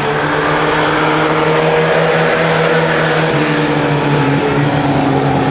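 Engines of several mini-truck race pickups running together at steady throttle as the pack laps the oval. Their hum holds a steady pitch and dips slightly about three seconds in.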